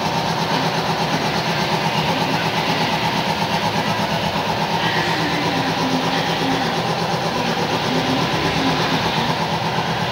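A small engine running steadily at idle, with an even pulsing beat.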